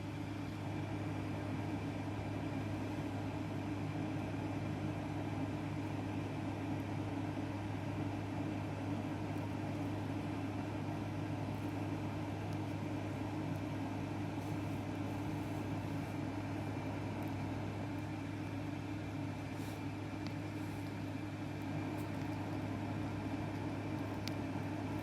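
A steady low hum with a faint thin high whine, unchanging throughout, like a small fan or motor running.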